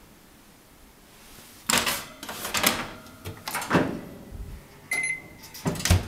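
Built-in oven door being pulled open and shut, its metal door and hinges giving several loud clunks and clatters, with a brief high tone about five seconds in.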